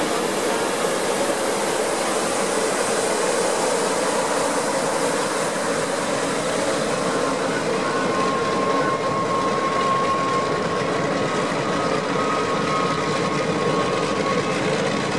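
Lockheed Super Constellation's four Wright R-3350 radial piston engines running steadily at taxi power, a dense propeller drone, with a faint whine coming in about halfway through.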